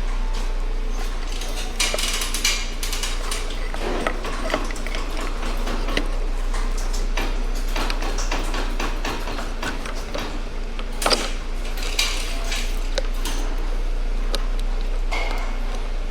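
Steel parts of a CV axle joint clinking and clicking irregularly as they are fitted back together by hand, with a few louder knocks in the second half.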